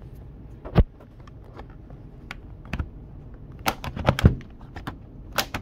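Plastic clicks and knocks of an HP ProBook 4440s laptop's bottom service door being pried and slid off by hand. There are about half a dozen sharp clicks at uneven intervals, loudest about a second in and again in a quick cluster around four seconds in.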